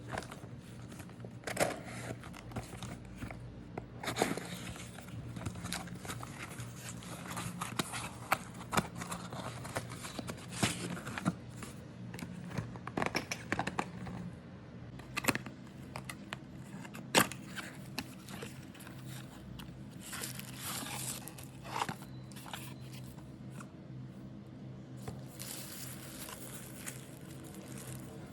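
Packaging being handled while a humidifier is unboxed: tearing, plastic crinkling and scraping, with scattered sharp clicks and knocks. The loudest click comes a little past halfway.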